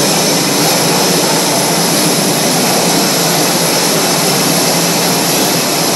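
Jet fighter engines running: a loud, steady noise with a thin high whine on top.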